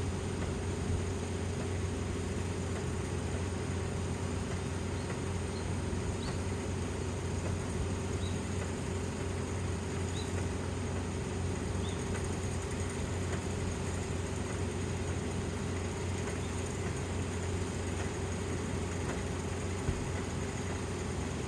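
Kubota Dynamax 470 combine harvester running steadily, a constant engine and machinery hum at one even pitch. A few faint, short high chirps come through in the first half.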